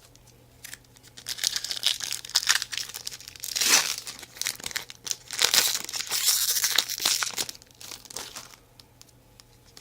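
Foil wrapper of a Topps baseball card pack being torn open and crinkled by hand, in irregular bursts of crackle, loudest about four seconds in and again around six seconds.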